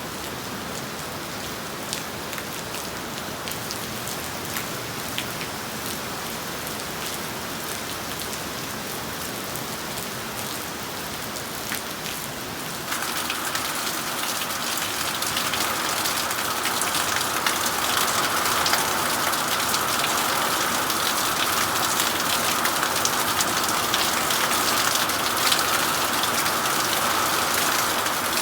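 Heavy rain pouring down: a steady hiss of rain with many small drop impacts. About halfway through it abruptly becomes louder and stays louder.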